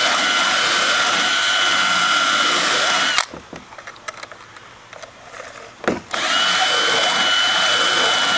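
Cordless drill spinning a round chainsaw file against the chain's cutting teeth: a steady motor whine with a grinding hiss. It stops about three seconds in, and after a knock it starts again about three seconds later.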